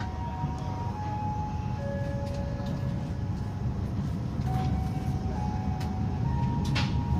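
Passenger train running: a steady low rumble with faint short tones at changing pitches, and a few sharp clacks near the end.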